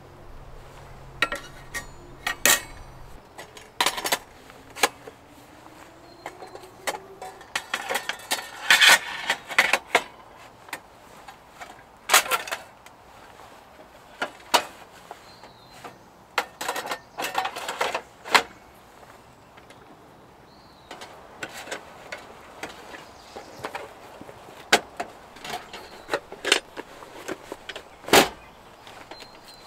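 Irregular sharp clicks, knocks and clatters of hard objects, in clusters with short pauses. A low hum stops about three seconds in.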